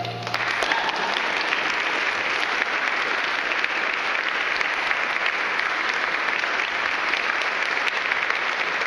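A choir's held final chord stops just after the start, and the audience breaks into steady applause.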